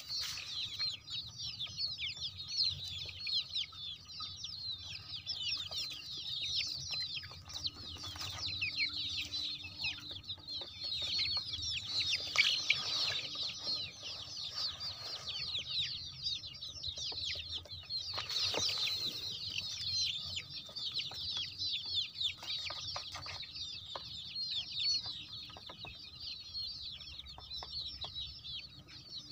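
A flock of young country (desi) chicks peeping continuously, many short, high cheeps overlapping, with a couple of brief louder noisy patches about twelve and eighteen seconds in.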